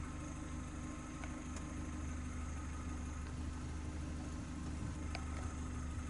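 Vehicle engine idling steadily, a low hum.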